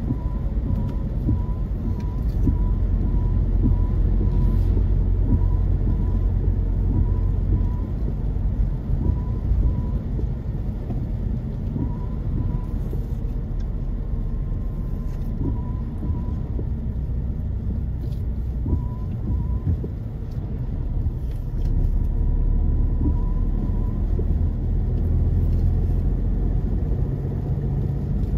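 Steady low rumble of a car driving on a wet road, heard inside the cabin.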